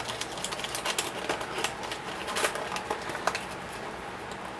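Plastic toy packaging being handled and pressed, giving irregular clicks, taps and crinkles as it is worked to snap back shut without sealing.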